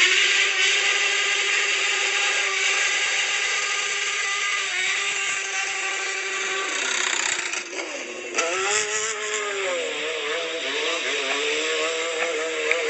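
Sport motorcycle engine revved up and held at high revs for several seconds. About eight seconds in the revs drop briefly, then the engine is revved up and down.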